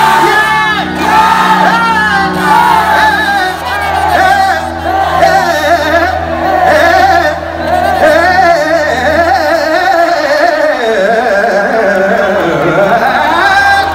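Live concert music through a large PA system: a singer's ornamented vocal line, wavering and turning quickly in pitch, over a steady low bass.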